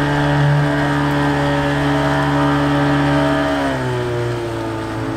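Car engine running at steady revs, then the revs drop about three and a half seconds in.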